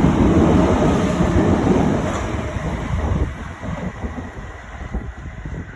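Class 377 electric multiple-unit train passing close by, a loud low rumble that fades away from about three seconds in as it moves off.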